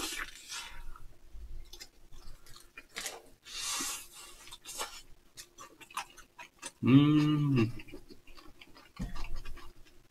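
Two people chewing mini hamburgers made on soft dinner rolls: wet mouth clicks and soft smacking. About seven seconds in, one lets out a short hummed 'mmm', the loudest sound.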